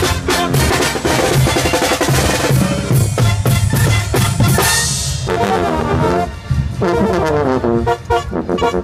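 Live brass band with drums playing: brass melody over a steady beat on the drum kit, the brass line standing out more clearly in the second half.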